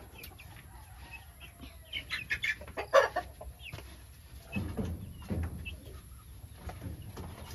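Rhode Island White chickens clucking in short scattered calls, with one louder squawk about three seconds in, as a hen is being grabbed at. A few dull thumps follow about five seconds in.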